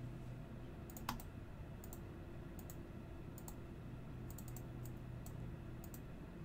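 Scattered clicks of a computer mouse and keyboard, about ten in all, several in quick pairs, over a faint steady low hum.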